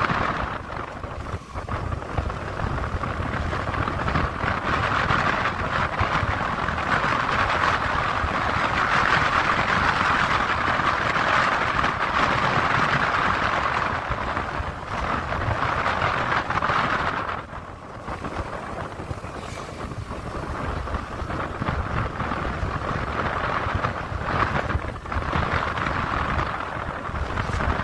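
Wind rushing over the microphone over the steady rumble of a vehicle travelling along a road, dipping briefly about a second and a half in and again about two-thirds of the way through.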